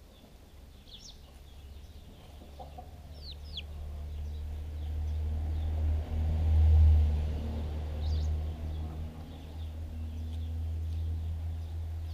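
Young chickens foraging close to the microphone: low clucking over a low rumble that swells to its loudest about six to seven seconds in, with a few short high falling peeps.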